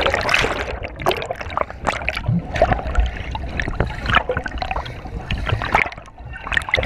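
Churning water and bubbles heard by a camera just under the surface of the lake: muffled gurgling and sloshing with many irregular clicks and knocks.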